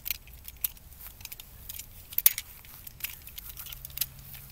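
Scattered metallic clicks and light rattles of toy cap-gun revolvers being spun and caught in the hand, with the sharpest click cluster about two seconds in.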